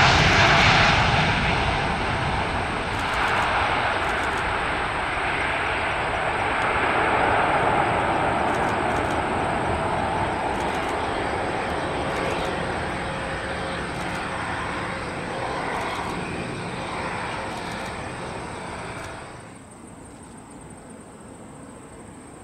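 Jet noise from an Airbus A350-900's two Rolls-Royce Trent XWB turbofans at takeoff thrust as the airliner lifts off and climbs away. It is a loud, wide rushing sound that fades slowly as the aircraft recedes, then drops away suddenly near the end to a faint background.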